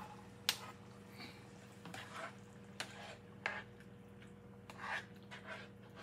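Light, scattered clicks and taps of cooking utensils against a pot, about seven separate knocks, over a steady low hum.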